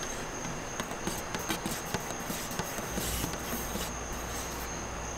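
Wooden paint stick stirring thick metallic-flake base coat in a metal quart can, making irregular small clicks and scrapes against the can. A steady high cricket trill runs behind it.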